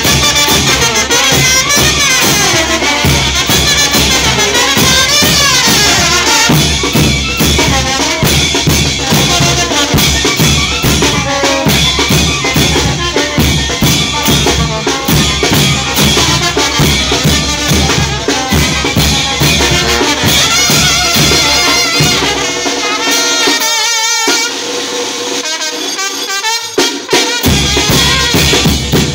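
Mexican brass banda playing live: trombones and other brass over bass drums and crash cymbals. About 23 seconds in, the drums and low end drop out for a few seconds, leaving a thinner passage, before the full band comes back in near the end.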